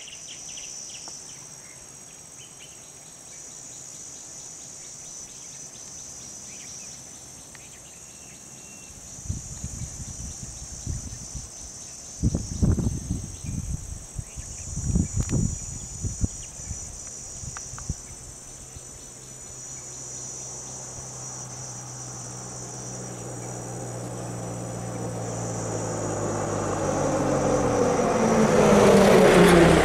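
Insects buzzing steadily in a high band, with a few low thuds around the middle. Over the last ten seconds a lorry's engine grows louder as it approaches and passes close by, its pitch dropping as it goes past.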